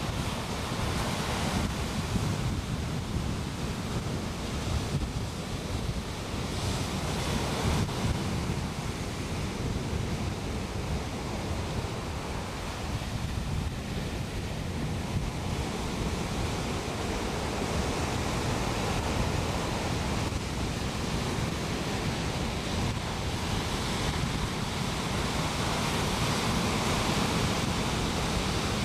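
Ocean surf breaking and washing up a sandy beach, a steady rushing wash, with gusty wind buffeting the microphone in a low rumble.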